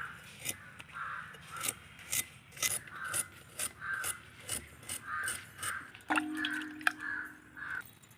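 Crows cawing over and over, about two calls a second, with sharp ticks in between. A short steady low hum sounds for about a second and a half from about six seconds in.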